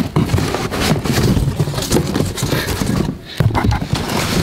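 Cardboard boxes being rummaged through and shifted inside a larger cardboard shipping carton: continuous rustling and scraping with irregular knocks.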